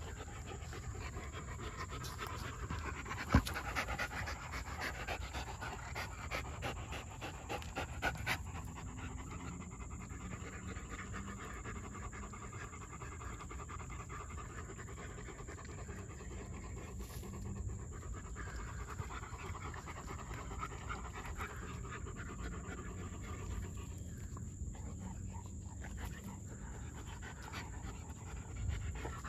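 German shepherds panting while they chew and tug at a rope toy. Quick clicking runs through the first eight seconds, with one sharp knock about three seconds in.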